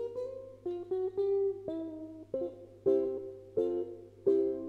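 Harley Benton solid-body electric concert ukulele played through an effects pedalboard and amp: a run of plucked single notes, then three strummed chords near the end, each left ringing. The weak pickup gives a quiet output, with a steady low amp hum underneath.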